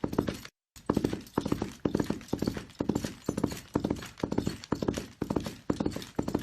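A horse galloping: hoofbeats falling in quick clusters of several strikes, about two strides a second, in a steady rhythm. The sound cuts out completely for a split second about half a second in, then resumes.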